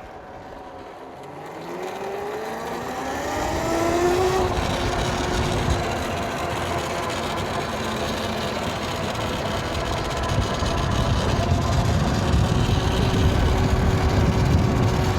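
YOZMA IN10 Pro electric dirt bike's motor whining up in pitch as it accelerates over the first few seconds, then holding a steady whine while cruising. Low wind and road rumble grow over the second half.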